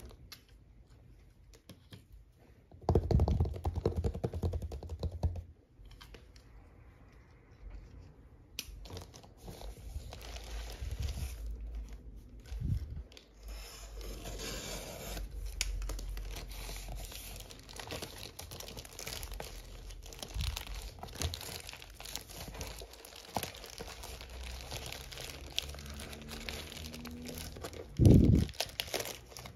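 Plastic courier mailer pouch being torn open and crinkled as the hands work a cardboard box out of it. The handling is loudest about three seconds in and again briefly near the end.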